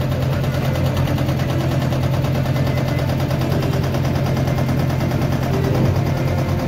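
Diesel engine of a JCB 3DX backhoe loader running steadily under digging work, with a fast, even clatter.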